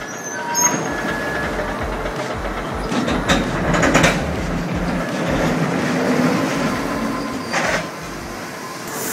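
Rotary railcar dumper turning a loaded wagon over: a steady rumble of machinery and the load sliding out, with sharp metal clanks about three, four and seven and a half seconds in.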